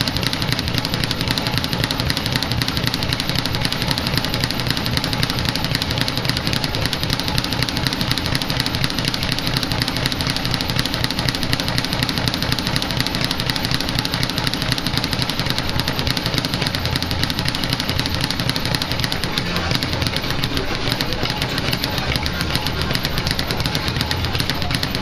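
Speed bag being punched nonstop, the bag rattling rapidly and evenly against its rebound board in a fast, unbroken rhythm.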